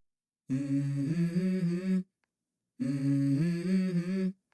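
A low hummed, chant-like vocal phrase, about one and a half seconds long, whose pitch steps up partway through. It plays twice, identically, with dead silence between, as an edited repeat.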